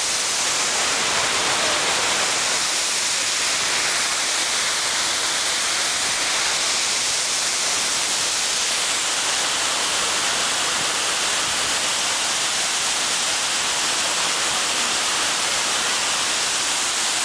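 Waterfall pouring into a plunge pool: a steady, even rushing hiss.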